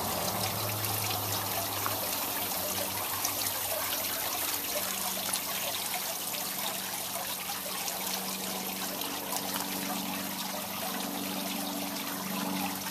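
Water trickling and splashing steadily from a glass-block water-wall fountain into its pool.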